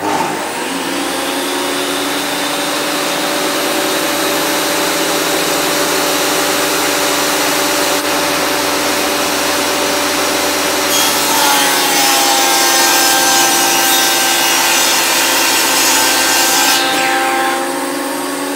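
A Makita stationary woodworking machine's electric motor starts and runs with a steady whine. About eleven seconds in, a board is fed through and the cutting noise grows louder and hissier for about six seconds, the motor's pitch dipping under the load. It then runs free again.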